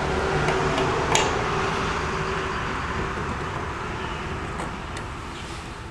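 Honda EU3000iS inverter generator's small engine running steadily, with a couple of sharp clicks, slowly fading toward the end.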